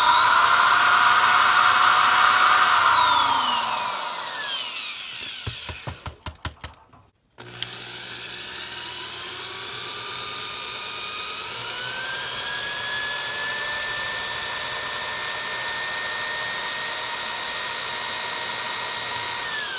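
Power drill with a small 5/64" bit drilling a pilot hole into the rivet of a die-cast toy car. The drill runs at high speed and winds down about three seconds in, gives a few short trigger blips, then spins up again about seven seconds in and runs steadily before winding down at the end.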